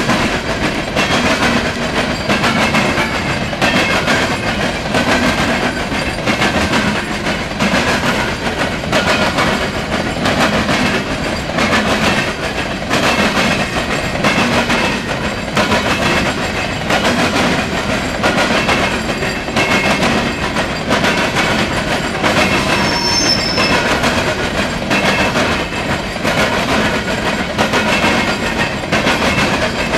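Steel coal hopper cars of a freight train rolling past, their wheels clacking in a steady rhythm over the rail joints.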